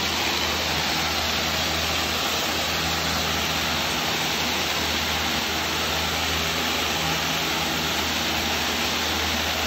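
Hydro-Force SX-12 hard-surface spinner tool cleaning tile and grout: a steady rush of pressurised water jets and vacuum recovery, with a low hum underneath.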